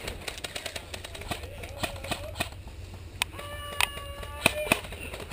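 Airsoft guns firing in a skirmish: irregular sharp snaps and clicks of shots and BBs striking. About three and a half seconds in, a person's voice gives a drawn-out shout lasting under a second.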